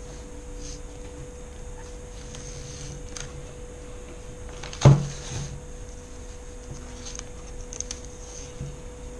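Masking tape being pulled off the roll and wrapped around a toy rifle: faint crackling pulls and light handling rubs. A single sharp thump about five seconds in is the loudest sound, over a faint steady hum.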